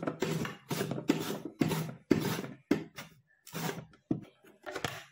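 A raw potato slid back and forth over the steel blade of a plastic mandoline slicer (chips cutter), each stroke a short scraping slice, about two a second.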